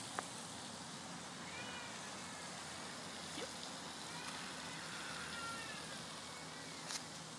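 Faint, high-pitched squeals of a young child that waver in pitch, a few times, over a steady outdoor hiss.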